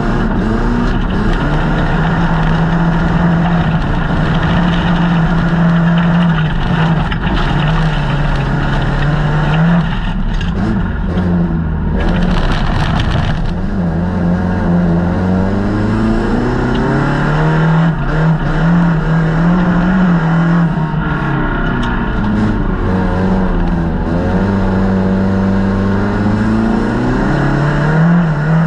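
Folkrace car's engine heard from inside the stripped cabin while racing, its pitch rising and falling over and over as the driver accelerates, lifts and changes gear. There is a brief hiss about twelve seconds in.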